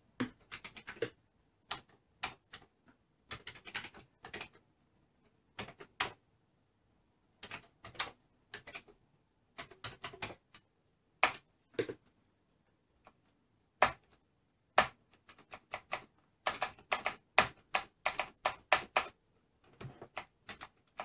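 Keystrokes on a Commodore 64's mechanical keyboard, irregular and spaced out, then a quicker run of presses near the end. Among them are presses of a return key that fails to register, which the owner puts down to dirt on the key's contact.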